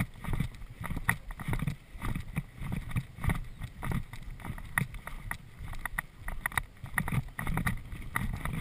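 Hoofbeats of a horse cantering on grass, a steady stride of about two beats a second, with clicks and rattles from the tack. Wind noise on the microphone runs under it. Near the end the horse jumps a cross-country fence.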